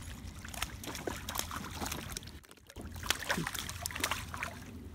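A hooked fish splashing and thrashing at the water's surface as it is reeled in: a series of short splashes, broken by a brief lull about halfway through.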